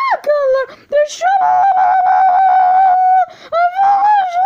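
A young girl singing in a high voice, holding one long note for about two seconds partway through, then a shorter one near the end.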